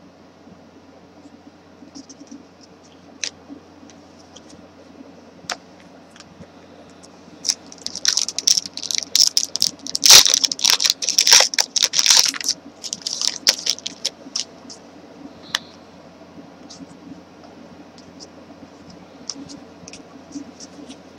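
Trading cards and their pack wrapper being handled: scattered light clicks and flicks, then a dense stretch of crinkling and clicking from about eight to fourteen seconds in.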